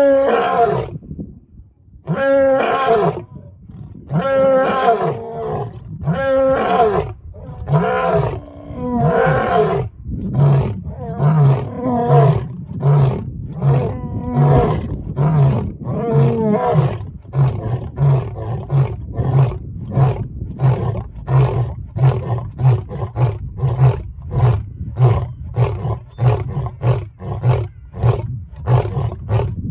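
Two male lions roaring together: several long, drawn-out roars, then from about a third of the way in a long run of short grunting roars at about one to two a second.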